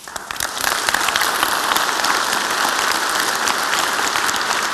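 Audience applauding: many hands clapping, starting abruptly and swelling to full within the first second, then holding steady.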